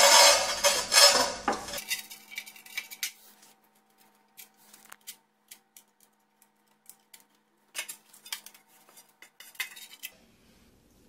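Large-format floor tiles sliding and clattering against one another as they are set down, loud for the first two seconds or so, then scattered light clicks and taps as the tiles are nudged into place.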